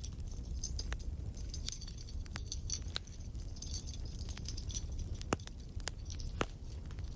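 Crackling wood fire: a steady low rumble with scattered pops and snaps, two sharper ones a little after five and six seconds in. Light clinks and jingles from Christmas tree decorations being handled mix with it.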